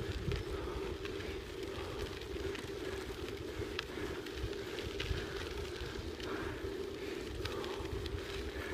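Travelling along a sandy dirt track: a steady rolling hum with scattered crackles of grit underneath, and low wind rumble on the microphone.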